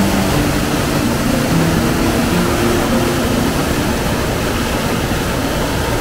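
Waterfall on a mountain stream, white water pouring over rocks in a steady, loud rush. Short low hums of changing pitch come and go beneath it.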